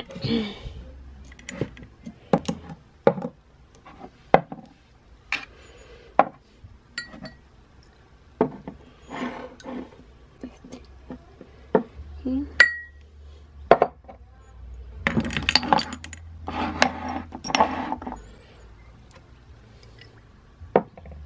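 Glass perfume bottles being picked up and set down on a vanity top, giving a string of irregular clinks and knocks, one of which rings briefly.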